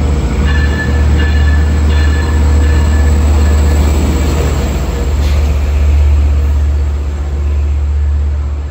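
LIRR DE30AC diesel locomotive and its bi-level coaches rolling slowly past on arrival, with a steady low engine drone. A high squeal comes and goes over the first couple of seconds.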